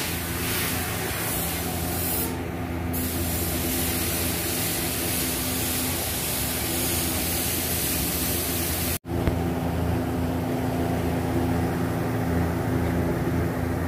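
Compressed-air spray gun hissing steadily as it sprays black automotive lacquer, with a short break in the spray about two seconds in. About nine seconds in the sound cuts out for an instant, and afterwards the hiss is weaker over a steady low hum.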